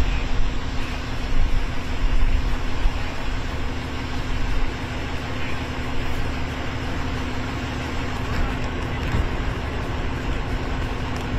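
Steady outdoor rumble and hiss with a constant low hum underneath, unbroken and with no distinct events.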